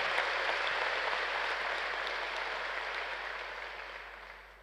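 Audience applauding, a dense even clapping that dies away over the last second or so.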